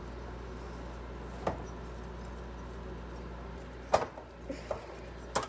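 Wire whisk stirring runny pancake batter in a glass bowl, with three sharp clinks of the whisk against the glass, the loudest about four seconds in.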